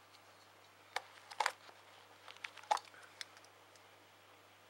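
A few light, scattered clicks and taps of plastic disposable lighters being handled.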